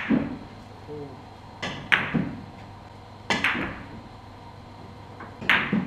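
Billiard cue striking the ball and balls clacking together: several sharp clacks a second or two apart, some in quick pairs, each with a short ring in the hall.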